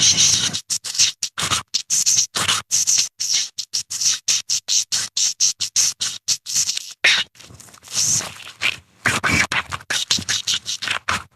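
Leopard dolphin creature sound effects: rapid, uneven trains of sharp clicks mixed with short hissing squeaks, several a second, easing off briefly a little past halfway before starting up again.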